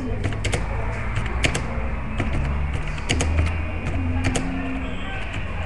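Irregular clicks of typing on a computer keyboard, over a steady low hum.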